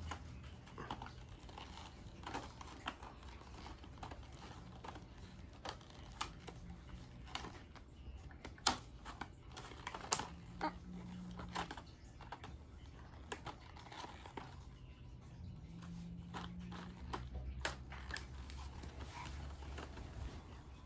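Plastic and cardboard toy packaging being handled and worked open by hand: scattered light clicks, crinkling and small tearing sounds.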